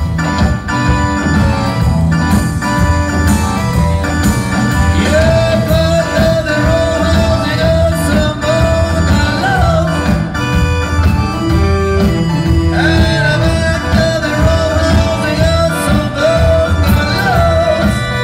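A live rock band playing a blues-rock song, with bass and drums throughout. A wavering lead melody comes in about five seconds in and again about thirteen seconds in.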